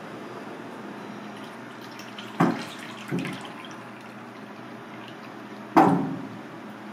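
Cooking oil pouring from a metal can into a deep two-handled iron frying pan, with a few sharp metal clunks, the loudest near the end.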